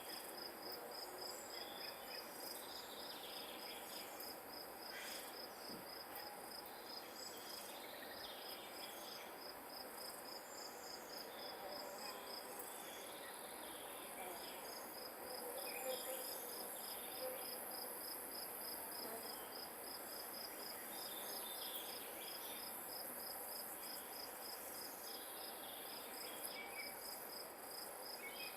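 Field insects chirping in a steady, high-pitched pulsing rhythm of a few pulses a second, pausing briefly about halfway; a higher steady insect hiss joins soon after.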